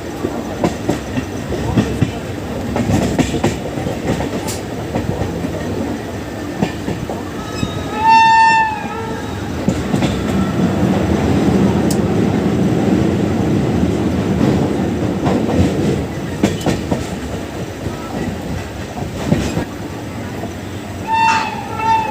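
Passenger train running at speed heard from on board: a steady rumble with rail-joint clicks. A shrill train horn sounds once for under a second about eight seconds in, and twice briefly near the end.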